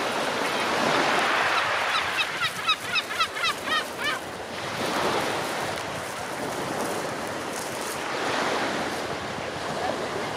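Surf washing on a pebble beach, a steady rush that swells and ebbs. From about two to four seconds in, a bird gives a rapid series of about ten short calls, roughly five a second.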